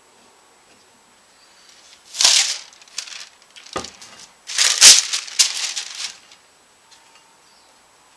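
Wax paper crinkling and rustling as it is pulled off the underside of a freshly glued guitar body, in three bursts, the last and loudest about halfway through. A few sharp knocks of handling go with the bursts.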